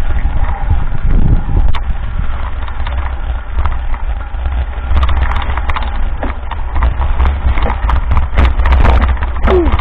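A mountain bike rolling down a rough dirt track, heard from a camera riding along: wind rumbling on the microphone under a constant clatter of knocks and rattles from the bike jolting over ruts, busiest in the second half.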